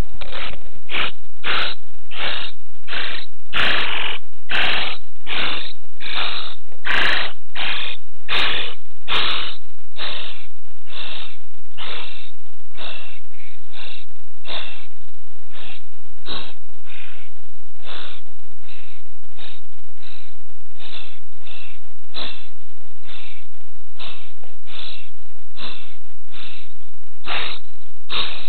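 Spotless starling nestlings inside the nest box giving raspy, breathy calls in a steady rhythm, about three every two seconds. A few sharp ticks come in the first third.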